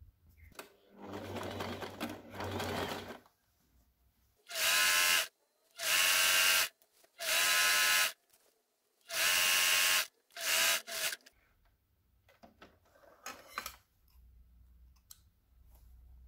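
Electric household sewing machine stitching in short bursts: about five runs of roughly a second each with brief pauses between, the last two very short, each a steady whir.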